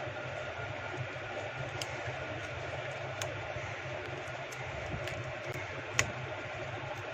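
Steady mechanical hum at the workbench with scattered light clicks of small tools working on a phone's circuit board; one sharper click about six seconds in.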